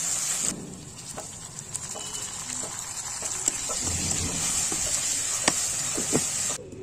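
Onions, green chillies and tomato sizzling in hot oil in an aluminium kadhai, stirred with a steel ladle that scrapes and clinks against the pan. There are a few sharp clinks in the second half.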